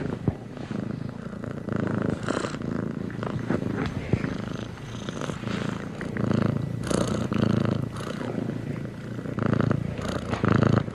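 Domestic cat purring steadily, the purr swelling and easing in rhythm with its breathing about once a second.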